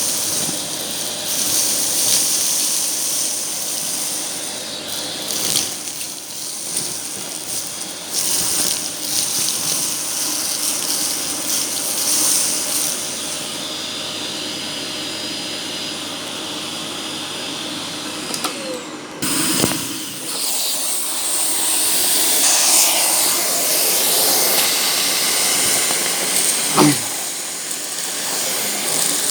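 Argos Simple Value vacuum cleaner running: a continuous motor hum under a strong high hiss of rushing air, shifting in level as it is used. There is a short sharp knock near the end.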